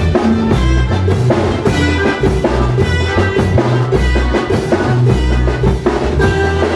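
Band music in the Mixtec chilena style: drum kit and bass keeping a steady beat, with a melody line above.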